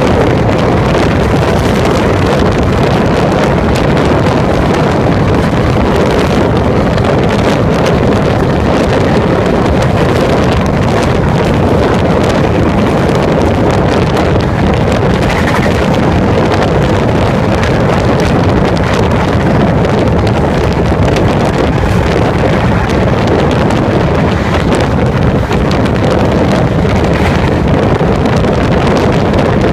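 Steady, loud rush of wind over a phone microphone held in the open window gap of a moving V-set electric double-deck train, mixed with the train's running noise.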